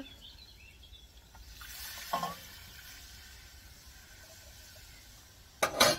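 Meat broth poured from a stainless steel cup into a hot Dutch oven of browned vegetables, hissing and sizzling as it hits the pan. A short loud clatter near the end.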